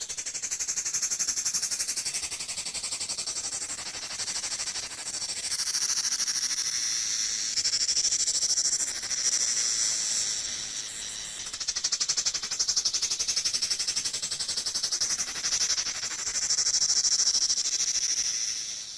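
Cicada singing: a shrill, rapidly pulsing buzz that swells and fades every few seconds, then cuts off at the very end.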